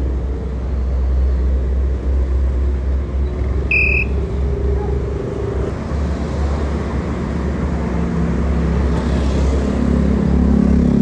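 Road traffic on a narrow street: motor vehicle engines running close by, with a short high beep about four seconds in and an engine coming up louder near the end.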